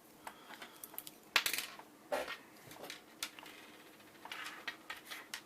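Small hard plastic K'NEX parts clicking and clattering against each other as they are handled, with one sharp, ringing clack about one and a half seconds in. Softer rustling of packaging near the end.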